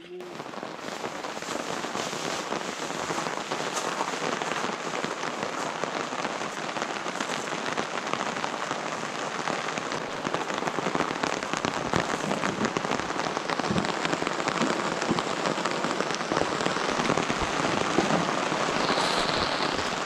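Rain falling steadily: a dense patter of drops.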